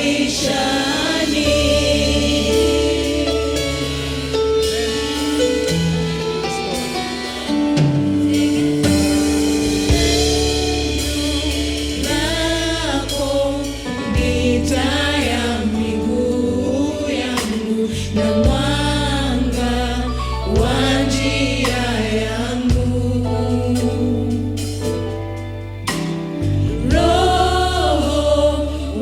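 Gospel song: a choir sings with wavering, held notes over an instrumental backing with a deep bass line.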